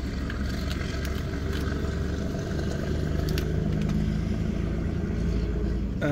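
Steady low rumble of a car idling, heard from inside the cabin, with a few faint clicks from small things being handled.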